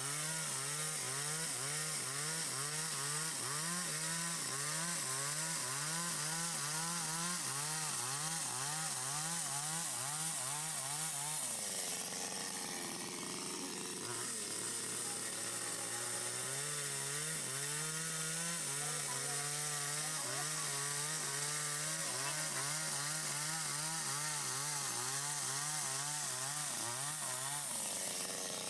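Stihl MS 250 two-stroke chainsaw with a 25-inch bar running under load, cutting through wood to split it. The engine pitch wobbles up and down about twice a second as the chain bites, eases off briefly about twelve seconds in, then picks up again.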